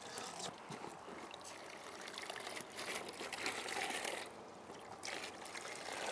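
Clean water poured from a plastic bin down a mesh kick-net, trickling through the net into a bin below as the net is rinsed to wash the collected invertebrates and sediment out of it. The pour thins briefly about four seconds in.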